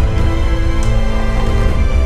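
Dramatic film score: held tones over a heavy bass.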